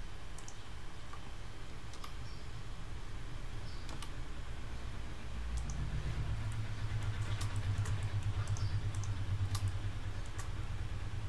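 Scattered computer mouse clicks and keyboard key presses, a few seconds apart, over a steady low hum that gets louder about halfway through.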